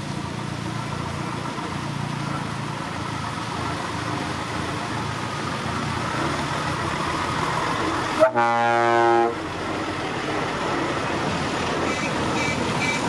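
Heavy lorry's diesel engine running as it approaches, with one loud truck horn blast about a second long around two-thirds of the way through.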